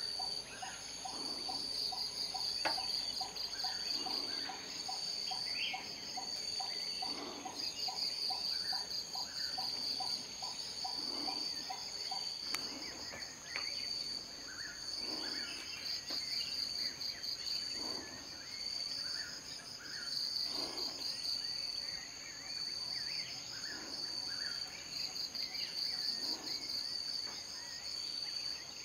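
Chorus of calling insects: a steady high-pitched trill that swells in pulsed phrases every few seconds. A lower pulsing call, about three pulses a second, runs through the first eight seconds or so. Scattered faint bird chirps can be heard.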